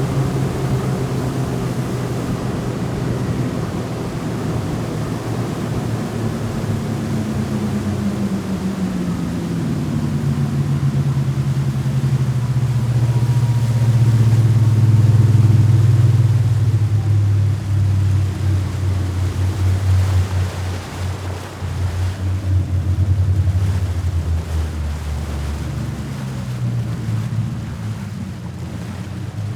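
Speed boat engine running, its pitch dropping about a quarter of the way in. It is loudest around the middle, then turns uneven and choppy and fades near the end.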